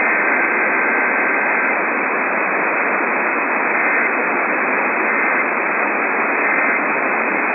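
Steady hiss of radio static from a receiver picking up a weak or empty channel, in a narrow, muffled band. Faint thin whistling tones come and go in the hiss.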